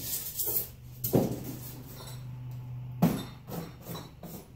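Styrofoam and cardboard packing being handled and pulled from a shipping box: rustling and scraping, with a sharp knock about a second in, another about three seconds in and a few lighter knocks after it, over a low steady hum.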